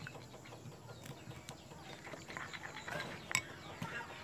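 Faint stirring of beaten egg and margarine with a silicone spatula in a ceramic bowl, with a few light clicks, and short chirping animal calls in the background in the second half.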